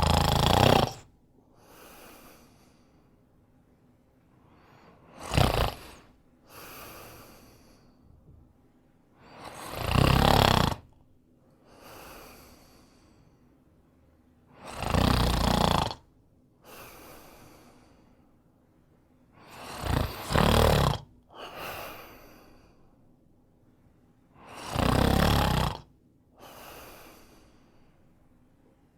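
A man snoring in a slow, even rhythm: six loud snores about five seconds apart, each followed by a quieter breath.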